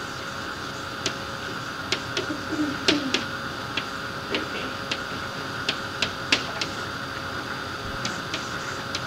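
Irregular light clicks and taps, a dozen or so, with the sharpest about three seconds in and again past six seconds, plus a short low creak. They sit over the steady hiss and hum of an old lecture-hall tape recording.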